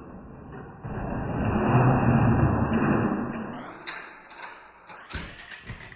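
Diecast toy monster truck making its run and jump: a rumbling rolling noise swells and fades, with a thin high tone above it that steps up in pitch twice near the end before cutting off abruptly.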